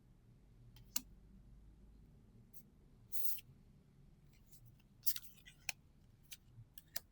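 Trading cards and their packaging being handled: scattered soft clicks and taps, with a short rasping slide about three seconds in.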